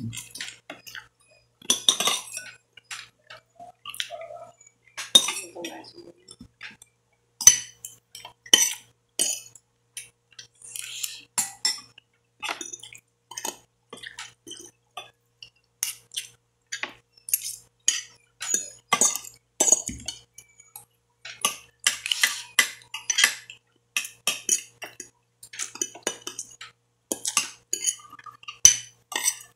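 Metal spoon and fork clinking and scraping on a plate, in many short irregular clicks, with close-up chewing.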